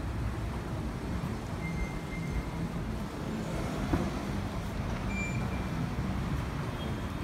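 Steady low rumble of station background noise, with a faint high beep about two seconds in and again near five seconds.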